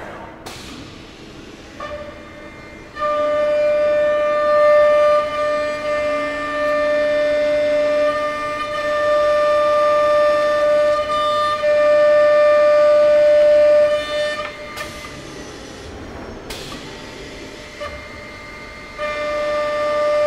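High-speed milling spindle of a Boschert CNC punching machine cutting 90° V-grooves into an aluminium–plastic composite panel: a steady, high whine while the cutter is in the material. The whine breaks off about two-thirds through, with a few sharp clicks, and starts again near the end.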